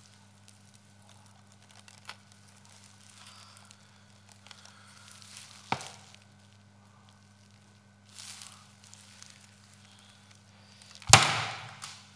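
Handling noise close to a microphone: faint rustling and clicks as a camcorder and loose ribbons of tape are moved about, with a sharp click about six seconds in and a loud knock with a rustling tail near the end. A low steady hum runs underneath.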